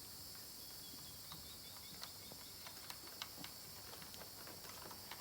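Faint scattered clicks and light taps of wiring and small parts being handled, over a steady hiss; the clicks come more often from about two seconds in.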